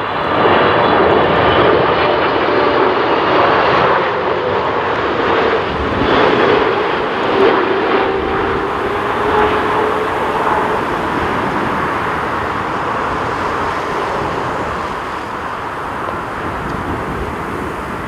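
Boeing 777-300ER on landing approach, its two GE90 turbofans making a loud jet roar with a whine that drops slightly in pitch. The sound is loudest in the first few seconds and then gradually fades as the airliner descends to the runway.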